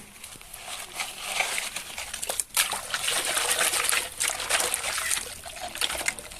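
Water trickling and splashing, with many small crackling clicks and splashes.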